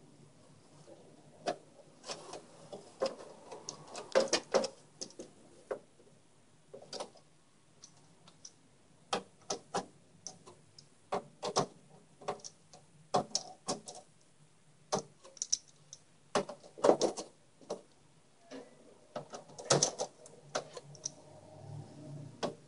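Scattered small clicks and metal taps of screws being handled and driven in as a motherboard is fastened into a PC case, coming irregularly with short pauses between.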